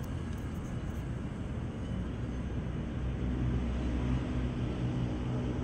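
Caterpillar excavator's diesel engine running, its steady low hum growing louder about two seconds in as the operator works the control levers.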